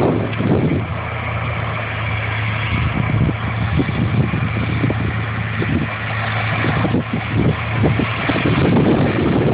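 Engine of sugarcane harvesting machinery running steadily with a constant low hum, with irregular knocks and crunching over it.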